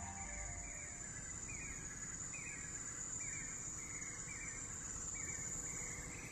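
Faint rainforest ambience: a steady high-pitched insect drone, with a short chirping call repeating about once a second.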